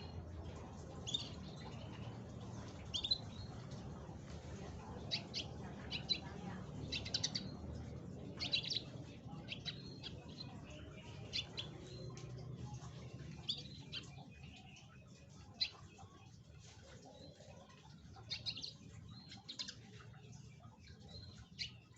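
Domestic canary giving short, separate chirps and calls at irregular intervals, not a continuous song, over a low steady hum.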